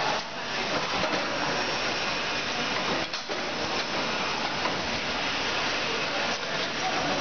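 Automatic bag-filling and packing machine for 25 kg woven sacks running: a steady, even mechanical noise with two short dips, about a third of a second and about three seconds in.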